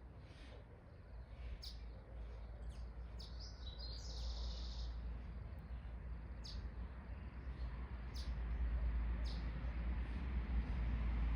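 Birds chirping in short, high calls every second or so, with one longer buzzy call about four seconds in. Under them runs a low rumble that grows steadily louder.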